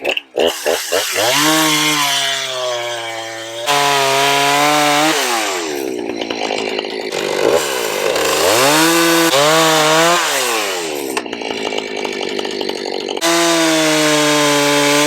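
Husqvarna Rancher 455 two-stroke chainsaw bucking logs. It gives a few quick throttle blips at the start, then runs up to full throttle and back down several times as it cuts.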